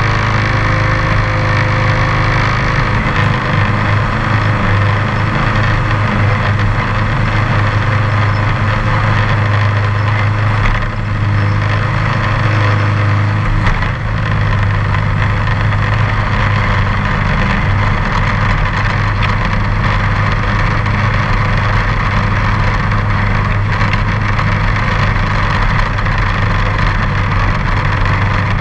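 John Deere X530 lawn tractor's V-twin engine running steadily as the tractor drives with its front-mounted snowblower attachment, a constant low drone that dips briefly twice in the middle.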